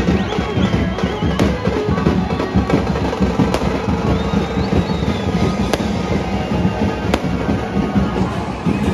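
Loud music and the din of a large crowd, cut by four sharp firecracker bangs about one and a half to two seconds apart, with a couple of thin wavering whistles.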